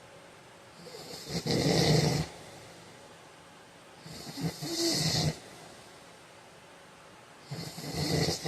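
A heavy-set man snoring in his sleep: three loud snores about three seconds apart, each lasting about a second, with quiet breathing between.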